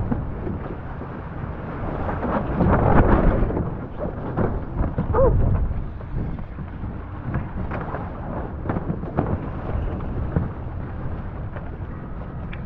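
Wind buffeting the microphone and water rushing and splashing against a sailing catamaran at speed, swelling loudest about two to three seconds in.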